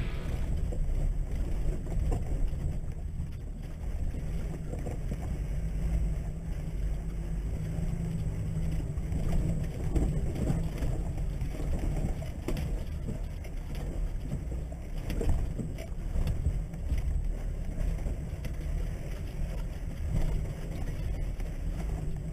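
A 4WD heard from inside its cabin, crawling down a rough rocky track: a steady low engine and drivetrain rumble with the odd knock and clunk as the tyres go over rocks and ruts.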